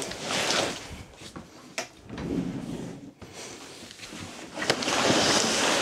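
Large, heavy cardboard shipping box being heaved up and slid across a tabletop: scraping and bumping, with a louder, longer scrape near the end.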